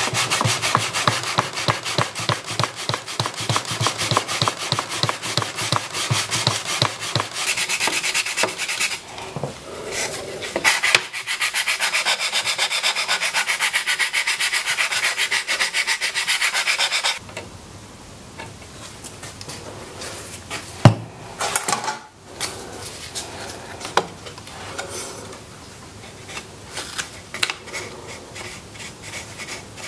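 Old lacquer being scraped and rubbed off a wooden folding-table leg by hand, in rapid back-and-forth strokes that stop a little over halfway through. Quieter handling of the wooden parts follows, with one sharp knock.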